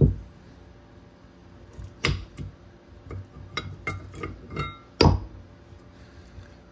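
Old rear brake pads clinking and knocking against their steel caliper bracket and its clips as a pad is worked out of the bracket by hand. It comes as a string of sharp metallic clicks and knocks, the loudest about two and five seconds in, a few with a brief ring.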